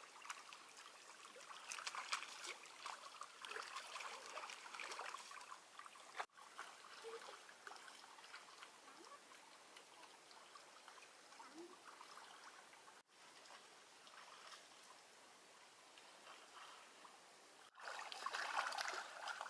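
Water trickling and flowing steadily, faint, in short edited stretches; it grows louder for the last couple of seconds.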